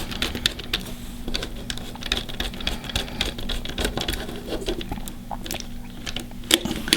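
Rapid, irregular small clicks and ticks of a screwdriver and a small screw being worked into a terminal on a plastic alarm control panel.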